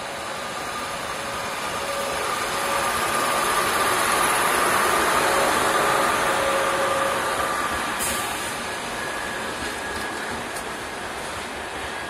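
WAP-7 electric locomotive and its passenger coaches passing through at speed: a steady rush of wheels on rail and moving air that swells to its loudest about four to six seconds in, then eases off as the coaches go by.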